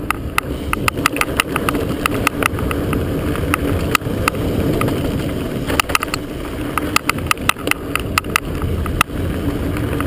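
Mountain bike rolling fast down a dirt singletrack, a steady rumble of tyres on dirt and wind, broken by frequent sharp, irregular clicks of the action camera banging on its chest mount.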